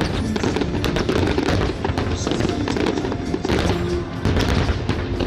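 Aerial firework shells bursting and crackling in rapid succession, over loud music played along with the display.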